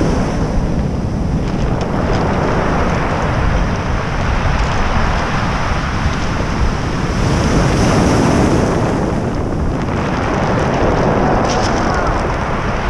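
Ocean surf breaking and washing up a steep pebble beach, with wind buffeting the microphone. The wash swells louder about two-thirds of the way through.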